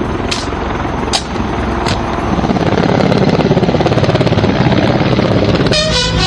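A formation of military helicopters flying over, their rotors thudding in a rapid, even beat that grows stronger about two seconds in. A few sharp clicks come early, and near the end a held musical chord starts.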